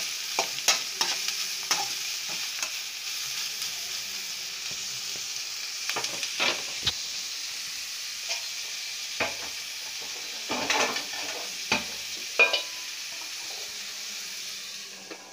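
Julienned carrots, beans, onion and chillies sizzling steadily in oil in an aluminium kadai, with a slotted metal spatula scraping the pan at the start and scattered sharp clicks through the rest.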